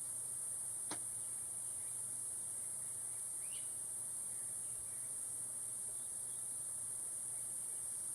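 Steady high-pitched hiss with a faint low hum underneath, and a single light click about a second in.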